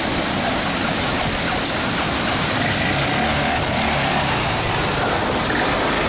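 Heavy storm surf breaking and rushing up a flooded beach: a loud, steady roar of waves and foaming water.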